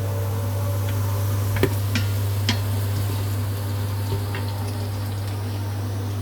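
Sliced onions sizzling in hot oil in an Instant Pot on sauté mode, over a steady low hum. A few sharp clicks, about one and a half to two and a half seconds in, are typical of a utensil knocking the pot while stirring.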